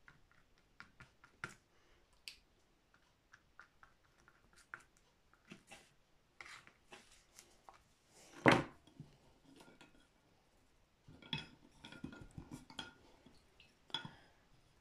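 Faint scattered taps and clicks of painting tools, with one louder knock a little past halfway, then a run of light clinks near the end as a paintbrush is changed.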